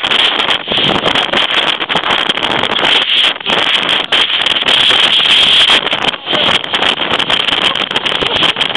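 Typhoon gale blasting the camera microphone: a loud, continuous rushing roar that breaks up for an instant now and then, the wind strong enough that a person cannot stand in it.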